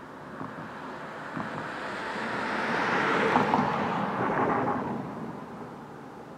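A road vehicle driving past: tyre and road noise swells to a peak about three seconds in, then fades away.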